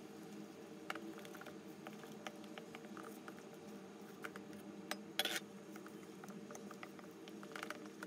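Wooden spoon stirring thick pancake batter in a glass mixing bowl: soft wet mixing with scattered light knocks and clinks of the spoon against the glass, the loudest a little past halfway.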